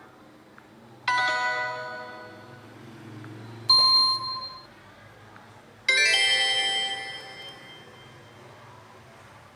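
LG LX125 ringtone played on a Samsung Galaxy J7 Prime: three doorbell-like chime strikes, about one, four and six seconds in. The first and last are full chords that ring out and fade over two seconds or more; the middle one is a short, thinner ping.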